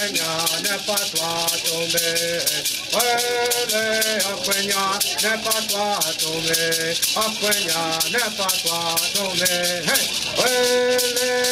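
A man's voice singing a chant in long held notes, phrase after phrase, to the fast, steady shaking of a painted gourd rattle.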